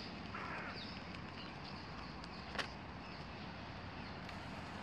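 Steady outdoor background noise, with a few faint short chirps in the first second and a single sharp click about halfway through.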